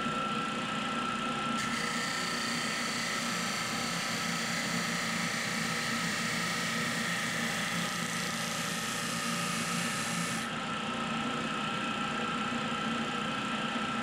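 A 100-year-old Syracuse Sander Co. D-2 15-inch disc sander, with a half-horsepower motor, running with a steady hum and a steady high tone. About a second and a half in, a pine board is pressed against the spinning sanding disc, adding a hissing grind. The grind lasts about nine seconds and stops when the wood is lifted away.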